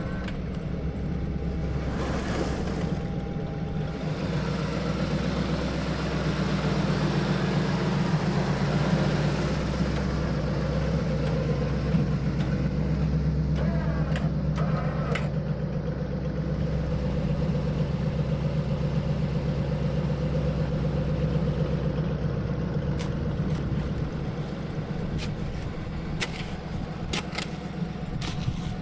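A vehicle engine running steadily at idle, swelling a little about a third of the way in, with a few short sharp clicks near the end.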